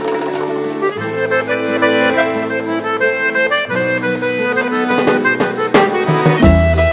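Music led by an accordion playing a melody, with a deep bass line coming in near the end.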